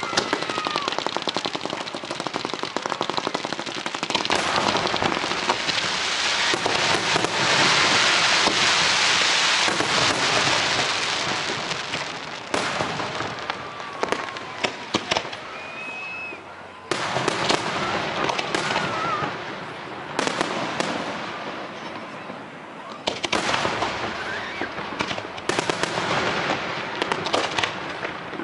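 Fireworks display: dense crackling and rapid strings of bangs, loudest as a hissing crackle about a quarter of the way in. A few short whistles sound midway, and fresh volleys break in suddenly several times.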